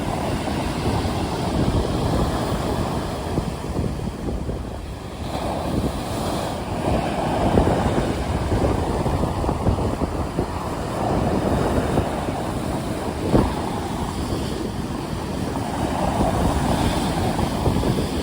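Sea waves surging and breaking in slow swells every few seconds, with a low wind rumble on the microphone and one short knock about two thirds of the way through.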